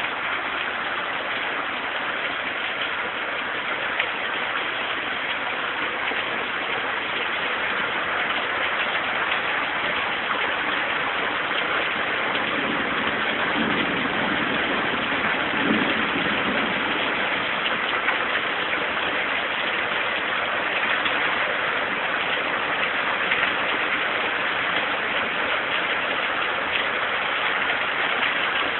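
Rain falling steadily, a dense, even hiss with no letup.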